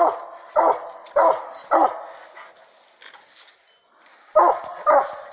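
Hunting hounds barking at a raccoon treed above them, short sharp barks about one every 0.6 s. The barking dies away for a couple of seconds in the middle and starts again near the end.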